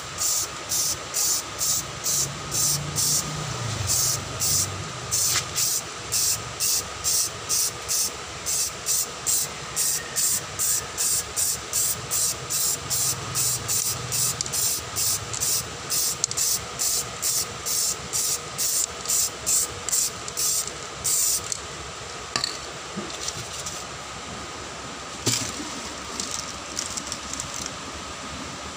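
Samurai aerosol spray can of clear coat sprayed onto an alloy wheel in rapid short bursts, about three hisses a second. The spraying stops a little over 20 seconds in, followed by one sharp click.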